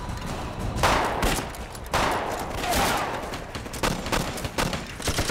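Rapid rifle fire in a war-film battle: a volley of many overlapping shots, the loudest reports coming about one second and two seconds in.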